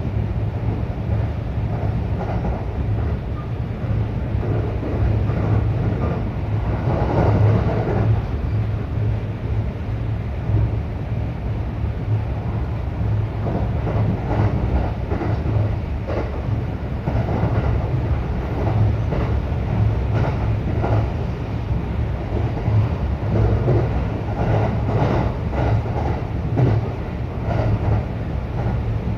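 Local electric train running, heard from inside the passenger car: a steady low rumble with irregular rattles and clicks from the wheels on the track.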